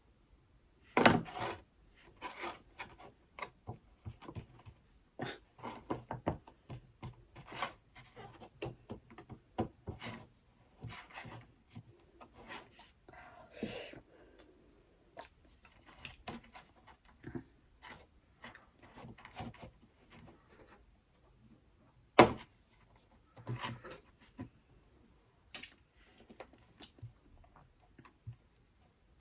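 Scattered small knocks, taps and rubs of things being handled on a table while biscuits are iced, with a sharp knock about a second in and another about 22 seconds in.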